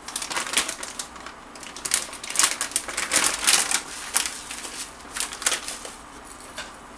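Plastic pouch of hemp seeds crinkling in the hands, in irregular crackles that stop about six seconds in.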